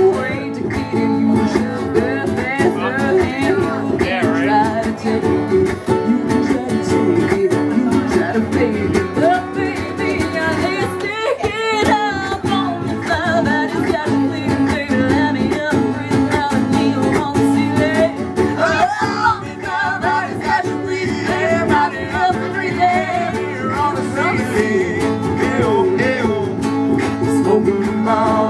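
Live acoustic duo: a steel-string acoustic guitar strummed behind a woman singing lead. Her voice wavers in a wide vibrato about halfway through.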